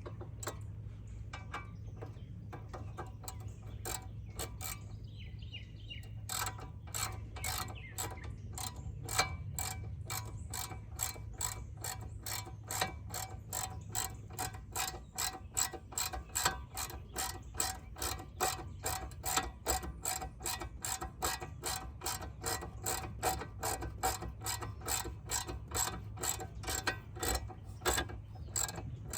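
Hand ratchet wrench clicking as it tightens the rear brake caliper bracket bolts: scattered clicks at first, then from about six seconds in a steady run of about two to three clicks a second.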